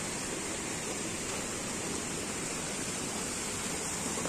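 Steady rushing of a small stream of water tumbling over rocks.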